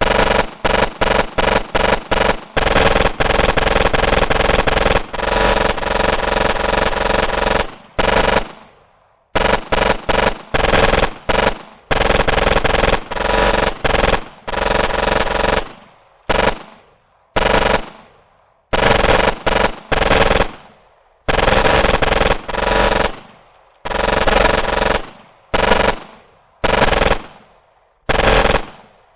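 Automatic weapon firing in rapid bursts, with strong indoor echo. For the first eight seconds the fire is almost continuous. After that come short bursts about every second or two, each trailing off in a long reverberant tail.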